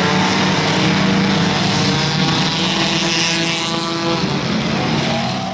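Several race car engines running loudly, their pitch holding and then shifting as the cars drive around the track.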